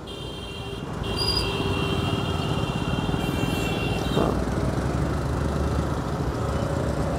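Busy city road traffic heard from a moving scooter: a steady rumble of engines and tyres that grows louder about a second in, with a high steady tone sounding through roughly the first half.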